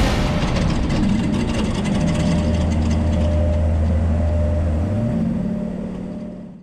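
Off-road race vehicle engine running at a steady pitch, then rising in pitch about five seconds in; the sound fades and cuts off at the end.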